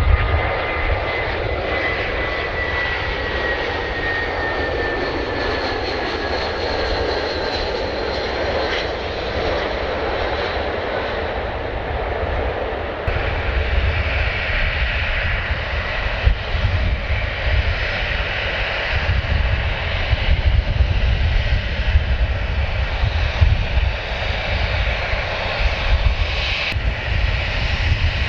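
Jet airliner's engines passing close by: a whine that falls in pitch over the first several seconds over a steady engine noise, which turns broader and rougher about halfway through.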